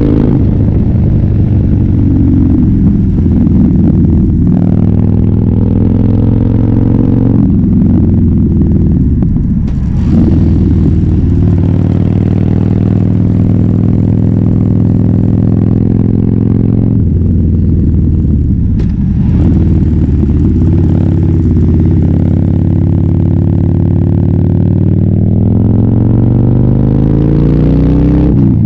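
Harley-Davidson Fat Bob V-twin running through a KessTech ESM3 exhaust under way. It runs loud, with the pitch climbing and stepping as it pulls through the gears. There are short dips in loudness at the shifts, about ten seconds in and again just before twenty seconds, and a rising pull near the end.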